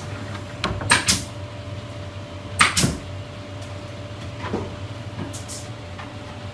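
Cardboard boxes being handled and packed into a carton: two sharp scrapes and rustles of cardboard in the first three seconds, then a few softer ones, over a steady low hum.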